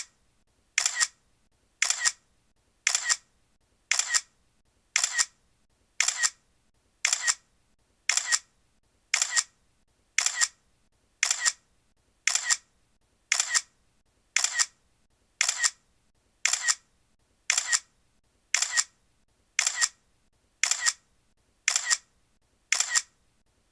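Camera shutter clicking about once a second, each shot a quick double click.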